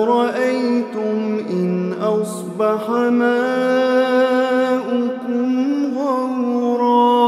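Male Quran reciter chanting verse in melodic tajweed style: long held notes, with gliding ornamental turns in pitch between them.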